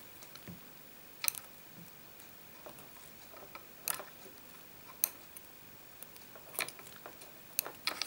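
Light, sharp clicks and ticks of small metal hand tools, tweezers and a scalpel, being handled against a wooden board while working a fine wire: about half a dozen, irregularly spaced.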